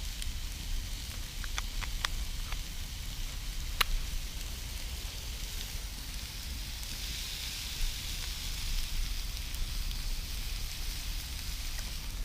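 Campfire burning, with a few sharp crackles in the first four seconds over a steady low rumble, and a soft hiss that swells for a couple of seconds past the middle.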